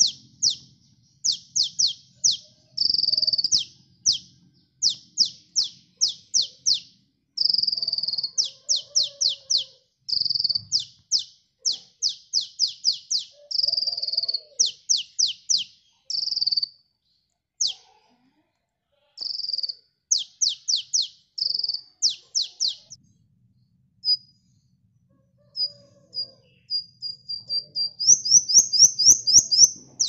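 Male Van Hasselt's sunbird (kolibri ninja) singing: quick runs of high, sharply falling chirps, three to six at a time, broken by short held notes and a few brief pauses, ending in a fast dense run near the end.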